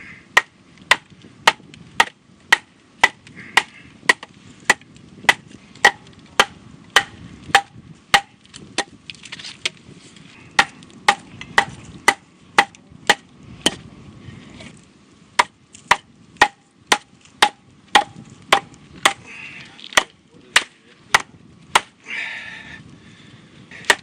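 Wooden baton knocking on a machete, batoning it down through a spruce log to split it. Sharp knocks come steadily about two a second, each with a brief ring.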